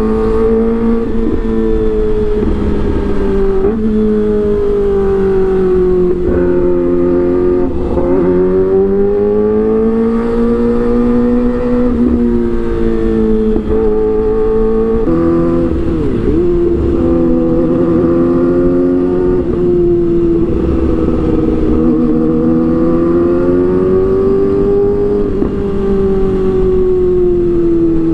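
Kawasaki ZX-25R's 250 cc inline-four engine running through an Arrow aftermarket exhaust, holding high revs with the pitch rising and falling slowly and smoothly.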